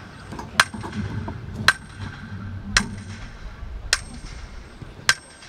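Sharp clanking knocks repeated evenly, five strikes about a second apart, each with a short ring, as of something being hammered.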